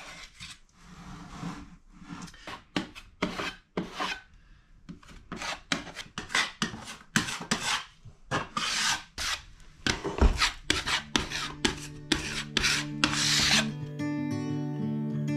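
Putty knife scraping wood filler into the cracks and joints of a hardwood floor, in quick irregular strokes. A strummed acoustic guitar comes in about ten seconds in and takes over near the end.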